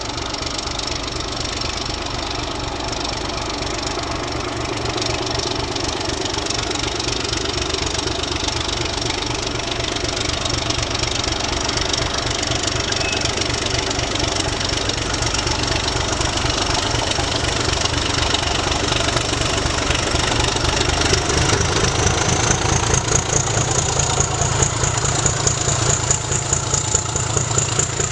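Two class 752 diesel-electric locomotives hauling a freight train, their diesel engines working under load with an even low throb that grows steadily louder as they approach. About three-quarters of the way in, a high whine climbs in pitch and holds.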